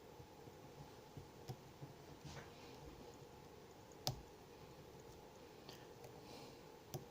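Faint, sparse small clicks and light scraping of metal tools against a wafer padlock as it is handled and picking begins, with one sharper click about four seconds in and another near the end.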